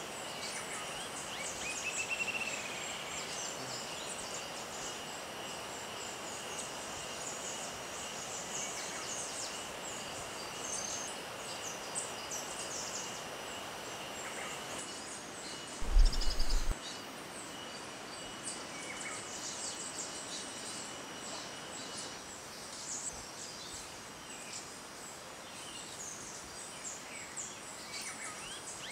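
Tropical rainforest ambience: insects buzzing and chirping steadily, with a bird call about two seconds in and scattered high chirps. A single low thump about halfway through is the loudest sound.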